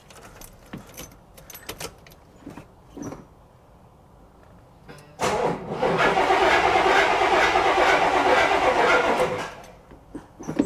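Keys jangling at the ignition, then about five seconds in the starter cranks the 1973 Cadillac Eldorado's 500 cubic-inch V8 for about four seconds without it catching, and the cranking dies away: the battery is dead.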